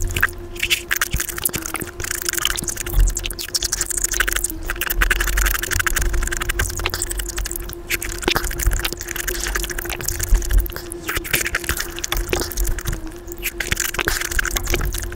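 Close-miked eating of juicy fruit and whipped cream played back at five times speed: wet chewing, slurping and spoon clicks run together into a rapid, dense crackle, with a steady hum underneath.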